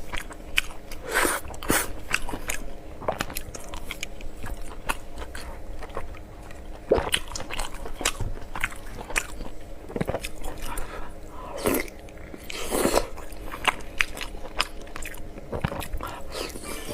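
Close-miked eating sounds of pork belly and rice: irregular bites, chewing and mouth clicks, with a few louder wet smacks.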